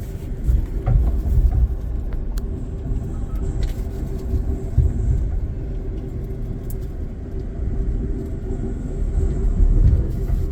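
Interior running noise of a moving Amtrak Auto Train passenger car: a steady low rumble from the train in motion, with a faint steady hum and a few faint clicks.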